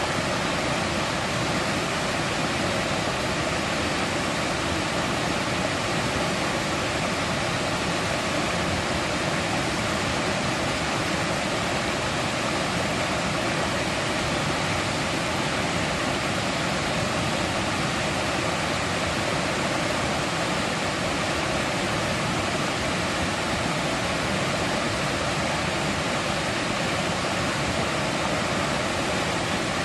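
Mountain stream rushing and splashing over rocks, a steady, even water noise with no letup.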